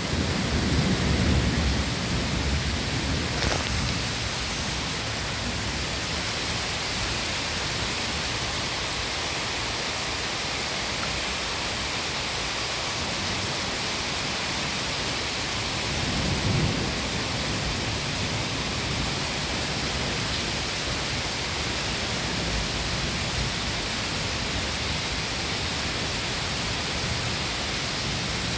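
Steady rain hiss with thunder rumbling low over the first few seconds, and a shorter rumble about halfway through.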